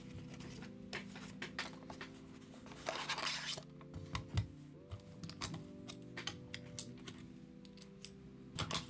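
Sharp plastic clicks from an Akko 5075S mechanical keyboard being taken apart, with a longer scraping, tearing noise about three seconds in, over soft background music.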